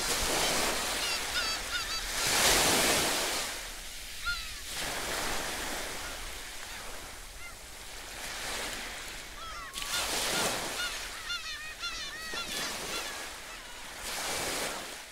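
Sea waves surging and breaking on a rocky shore, several times over, the loudest about two to three seconds in. Between the surges, birds call in short repeated cries.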